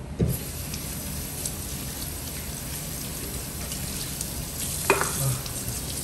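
Kitchen faucet water running steadily into a stainless steel sink, starting suddenly just after the opening, as humidifier parts and a cloth are rinsed under the stream. A single sharp knock comes a little before the end.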